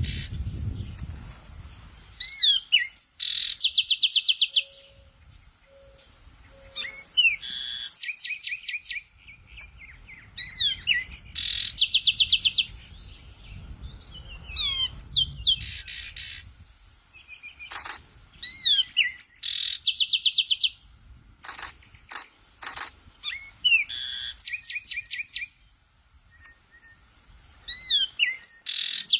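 A songbird singing: loud phrases every few seconds, each made of whistled up-and-down notes and fast trills of rapid, evenly repeated notes. A thin, steady high whine runs under the song throughout.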